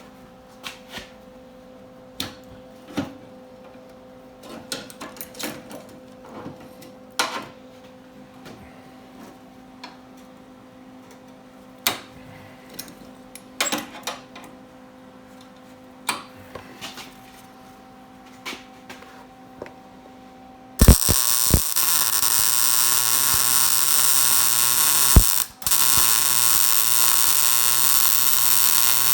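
Light metal clinks and taps over a steady electrical hum, then about 21 seconds in a welder strikes up on a patch piece on a truck frame: a loud, steady crackling hiss that breaks off once for a moment and starts again.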